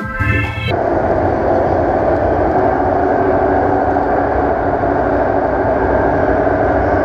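Electronic music cuts off less than a second in and gives way to a steady, even, vehicle-like rumble.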